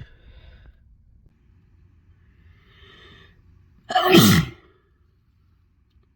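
A person sneezing once, loudly, about four seconds in, after a short breathy intake; the sneeze's voiced cry falls in pitch.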